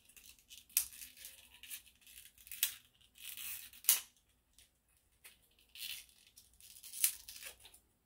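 Small clear plastic packaging handled and picked open by hand: irregular crinkling rustles broken by several sharp plastic clicks.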